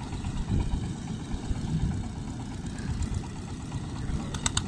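Long-shaft engine of a wooden river boat running steadily under way, a low, even rumble. A quick run of sharp clicks comes near the end.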